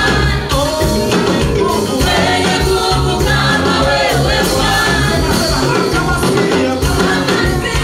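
Gospel praise song sung by a group of voices over instrumental backing with a steady bass line.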